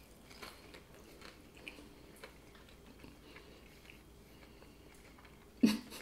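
Quiet chewing of a ranch Pringles chip topped with mac and cheese and Milky Way, with small crunches scattered throughout. A brief loud vocal sound comes near the end.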